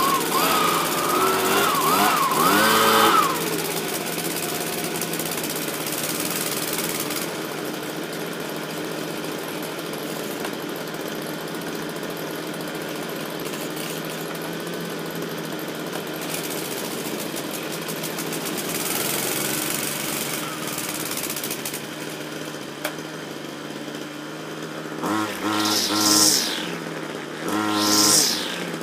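The 27.2cc two-stroke engine of a Stihl SH86 leaf blower, running after a cold start: it is revved up and down a few times, then idles steadily. Near the end come two short, loud revs of a small two-stroke engine.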